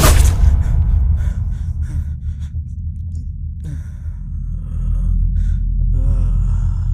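A deep, steady low drone from the film's sound design, with a man's gasps and short breathy vocal sounds over it, the loudest near the start and again about six seconds in.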